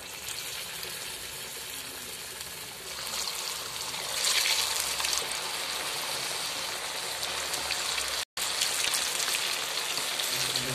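Chicken 65 pieces deep-frying in hot oil in a kadai: a steady sizzle that grows louder and fuller about three to four seconds in, cutting out for a moment about eight seconds in.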